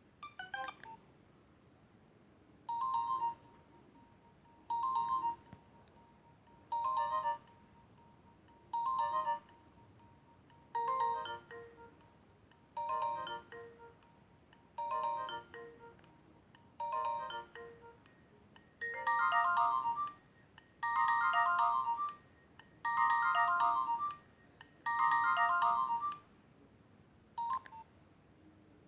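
Nokia 1110i mobile phone playing one of its built-in ringtones: a short phrase of electronic beeping notes repeats about every two seconds, and from about two-thirds of the way in the phrases become fuller and longer.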